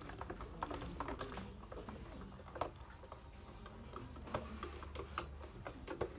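Irregular light clicks and ticks of a screwdriver turning a screw out of a plastic receipt-printer casing, over a low room hum.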